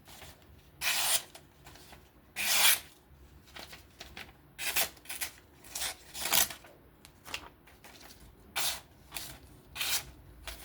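Freshly freehand-sharpened folding knife slicing through paper to test its edge, with about a dozen short cutting strokes. Two longer cuts come in the first few seconds, then shorter, quicker ones.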